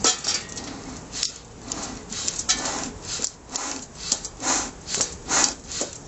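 Bee smoker's bellows being squeezed by hand: a run of short whooshing puffs of air, roughly two a second and a little irregular, fanning the smouldering fuel so the smoker keeps going.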